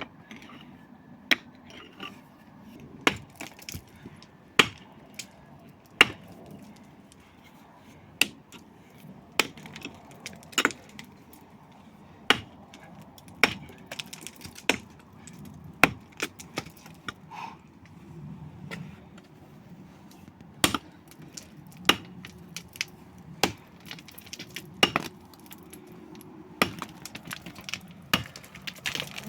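A long series of sharp, irregular knocks, roughly one every second or so, from something being struck over and over.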